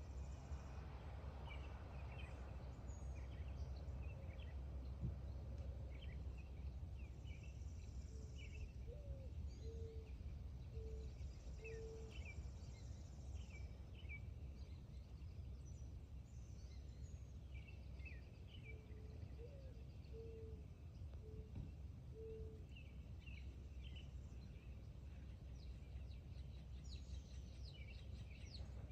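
Several songbirds chirping and calling over a steady low rumble. Twice, a lower-pitched bird gives a slow series of four or five soft, even notes, the first sliding up.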